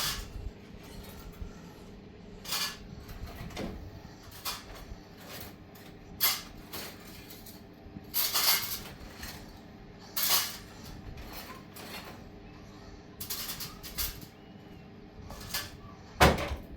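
Irregular knocks and clatters of hard objects being handled, a dozen or so scattered through, the loudest near the end, over a faint steady hum.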